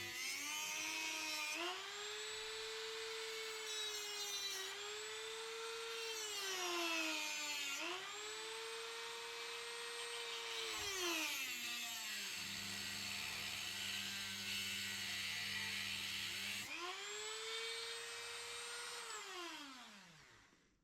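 Dremel rotary tool with a small cutting disc running at a high whine while cutting away a bearing cage. Its pitch sags and recovers each time the disc bites. The whine drops out for a few seconds in the middle, then returns and winds down to a stop near the end.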